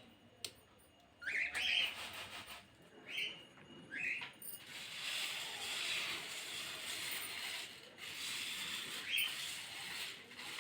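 A bird calling with short rising whistled chirps, several times through the stretch. A steady hiss runs under the calls through the second half.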